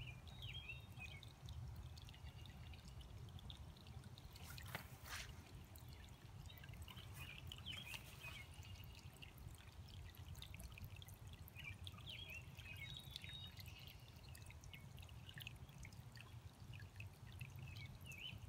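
Faint trickling and pouring of rainwater runoff flowing under a wooden fence, with a few sharp clicks.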